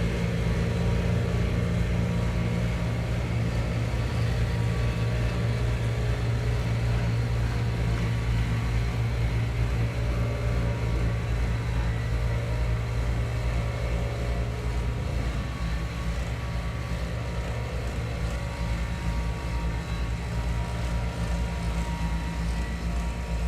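Construction vehicle engine running steadily at a constant speed: a low drone with a fast, even throb that eases slightly about fifteen seconds in.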